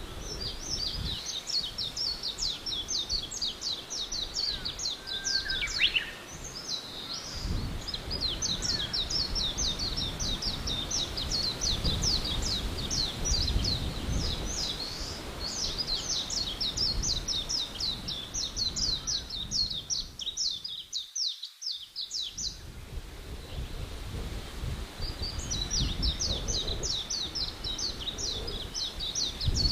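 Forest ambience: birds chirping in a fast, high-pitched repeated trill of about five or six notes a second, pausing briefly about two-thirds through, over a low, steady rumble.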